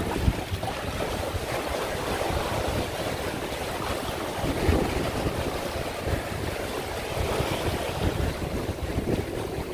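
Small waves washing and breaking over a rocky shoreline, with wind buffeting the microphone.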